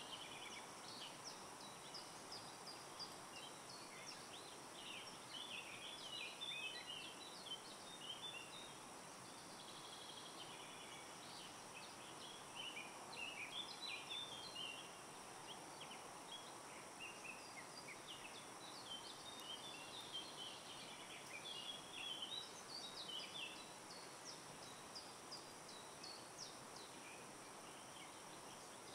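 Faint forest ambience: birds giving scattered short chirps and calls over a steady background hiss, the chirps coming in small bunches with gaps between.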